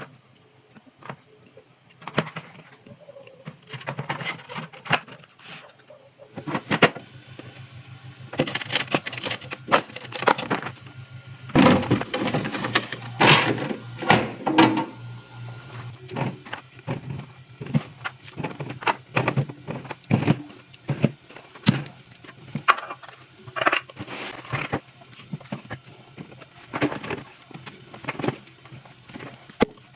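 Items being handled while restocking a mini fridge: plastic packaging crinkling, with repeated clicks and knocks of containers being set down, busiest in the middle.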